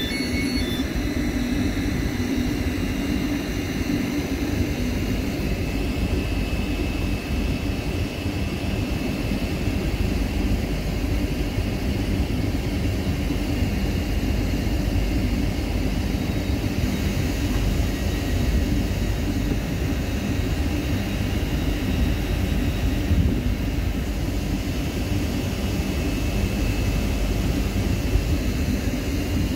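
Great Western Railway Class 800 train standing at the platform with its equipment running: a steady low hum with a faint high whine above it.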